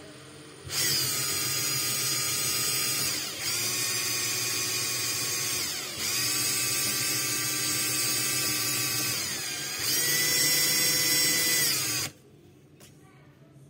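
Cordless drill/driver running at speed, its motor whining steadily while it spins a paper card with a pen pressed against it. The whine starts suddenly, sags in pitch and recovers three times, and cuts off near the end.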